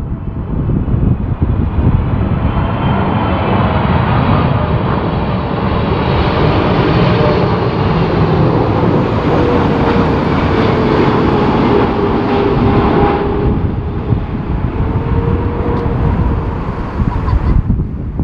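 Boeing 777 jet engines on final approach, passing low and close: loud, steady jet noise with a whine that slides slightly lower as the aircraft goes by.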